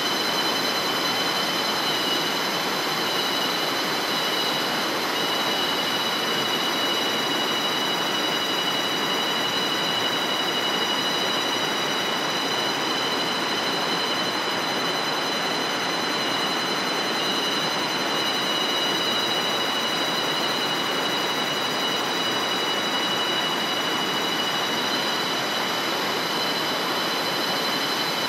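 Steady chorus of insects, several holding unbroken high tones over a dense, even hiss.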